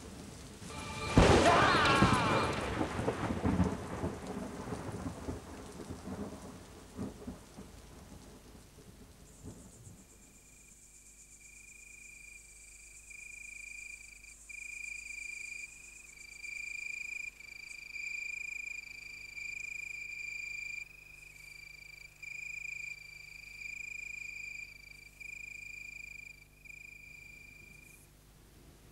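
A loud clap of thunder about a second in, rumbling away over several seconds over rain. From about ten seconds in, a high tone sounds in uneven pulses over low steady notes.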